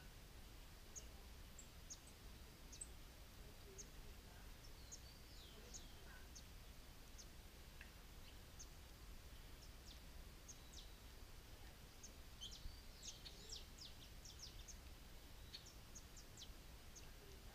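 Birds chirping faintly: scattered short, high calls, busiest about twelve to fourteen seconds in, over a steady low background rumble.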